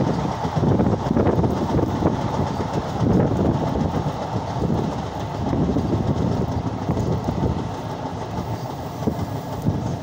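A moving train heard from an open door or window of its coach: a steady rumble and clatter of wheels running on the rails.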